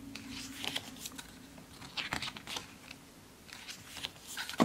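Pages of an album photo book being handled and turned, the paper rustling in several short swishes, with a sharper knock near the end as the book or a page is set against the table.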